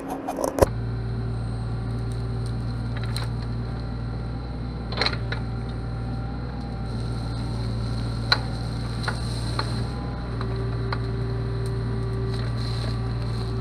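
Kubota mini excavator's diesel engine running steadily under work, with a few sharp cracks and knocks as the ripper tooth digs at a tree stump; the loudest crack comes about 8 seconds in.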